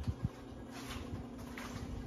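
Hunter Caicos ceiling fan running: a steady motor hum with soft rushes of air every half second or so as the blades sweep past. Low buffeting of air on the microphone dies away about a quarter second in.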